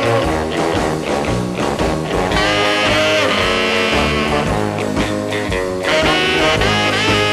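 Instrumental music from a 1961 single by a band-leader's orchestra, playing steadily with no voice.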